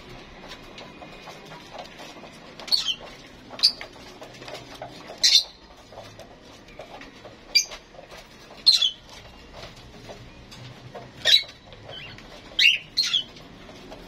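Small cage birds in an aviary chirping: about eight short, high calls, each falling in pitch, at irregular intervals.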